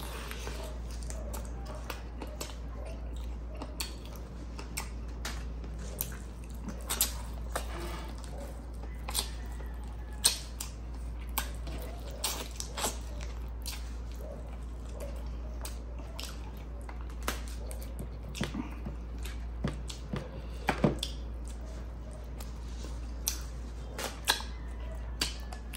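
Close-up eating sounds: chewing, lip smacks and sharp mouth clicks as chicken is eaten by hand, scattered irregularly over a steady low hum.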